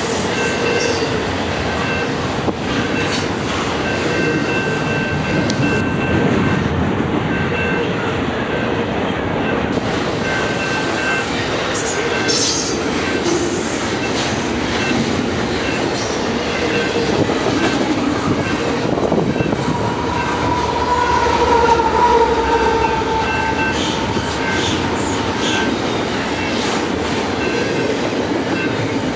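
Double-stack container freight train rolling past: a steady rumble and clatter of the cars on the rails, with high wheel squeals coming and going, and a stronger, slightly falling squeal about two-thirds of the way through.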